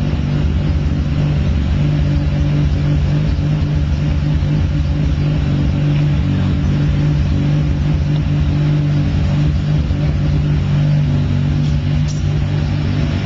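Mazda 13B Turbo II two-rotor rotary engine in a 1982 first-generation RX-7, running at a steady speed with no change in pitch.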